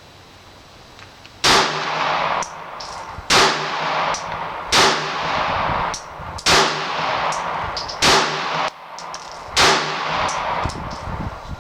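Six shots from a Glock 42 .380 pistol, fired one at a time about one and a half seconds apart, each followed by about a second of echo, with small metallic clicks between them.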